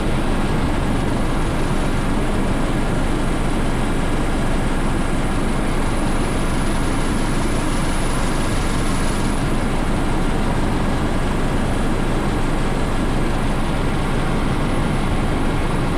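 Coast Guard helicopter running steadily in flight: a dense, unbroken rotor and engine noise with a thin high whine over it.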